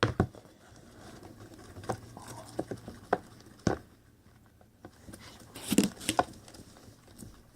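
A mixing tool stirring glue, water and food colouring in a bowl, making irregular wet clicks and taps, with the loudest ones about six seconds in.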